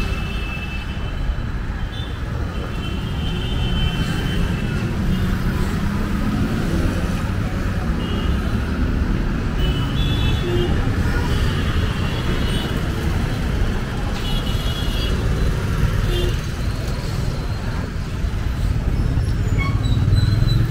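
Steady traffic noise from motor vehicles on a busy street, a continuous low rumble. Short high-pitched sounds come and go over it.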